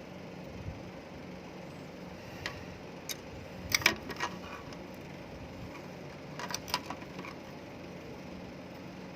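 Scattered sharp clicks and taps of small plastic and metal parts being handled, loudest in a quick cluster a little before the middle and another about two-thirds in, over a steady low hum.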